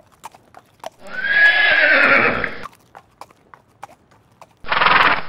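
A horse whinnying loudly for about a second and a half, over hooves clip-clopping a couple of times a second. A shorter, rougher burst of horse sound comes near the end.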